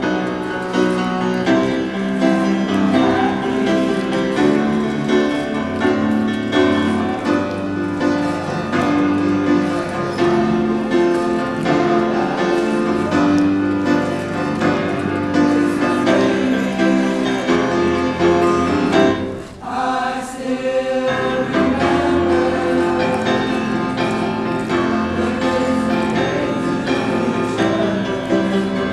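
A men's choir of about eighteen voices singing in parts, with sustained chords and a short break about two-thirds of the way through.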